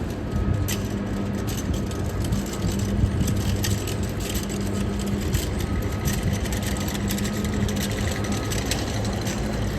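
Steady low hum of a vehicle running, with many small clicks and rattles through it.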